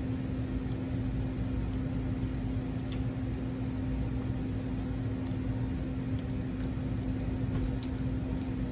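Steady low machine hum with one constant tone, unchanged throughout, and a few faint ticks over it.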